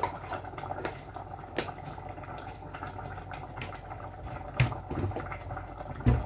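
Cassava leaf sauce simmering in a stainless steel pot on an electric hob: steady low bubbling with scattered small pops. A few soft knocks sound through it, the loudest near the end.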